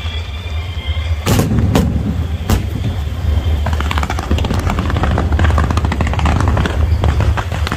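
Fireworks display: three loud booms of bursting shells between about one and two and a half seconds in, then dense rapid crackling and popping as many shots fire together, over a steady low rumble.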